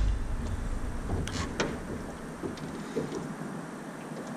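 Light knocks and rustling from a person shifting about in a small boat, with two sharper knocks about a second and a half in, over a steady low rumble.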